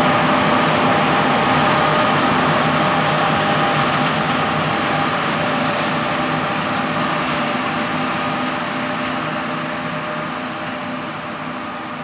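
Several John Deere class 9 combines harvesting wheat: the steady drone and whine of their engines and threshing machinery, fading gradually.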